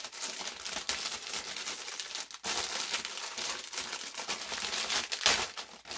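Clear plastic bag crinkling and crackling continuously as it is handled and crumpled, with a louder crackle about five seconds in.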